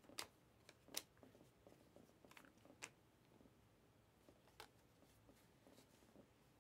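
Faint handling of a stack of Panini Mosaic trading cards: the cards slide against each other and give a handful of small, sharp clicks, most of them in the first three seconds, with one more near the middle.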